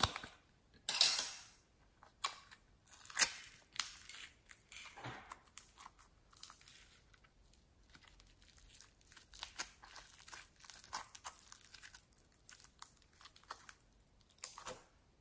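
Green floam (slime packed with tiny foam beads) crackling and crunching as fingers pull it from its plastic container and squeeze and press it down. The plastic container crinkles loudly about a second in and again near three seconds.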